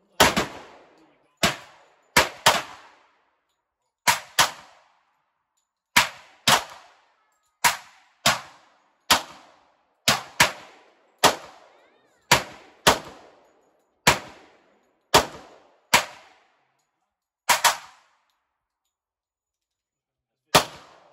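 10mm semi-automatic pistol fired in a steady string of about twenty sharp shots, roughly half a second to a second and a half apart, some in quick pairs. Each shot rings out briefly under the covered firing line. After a pause near the end comes one final shot.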